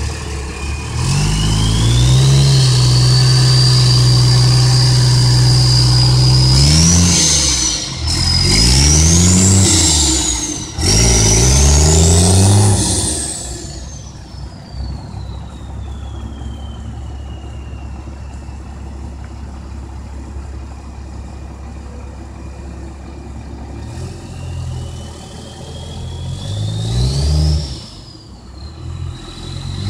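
5.9 Cummins turbodiesel in a Ford F-250 revving hard and held high while the rear tyres spin in a burnout, then climbing twice more as the truck pulls away, with the turbo whistle rising and falling with the revs. The sound fades after about a third of the way in and the engine climbs again near the end.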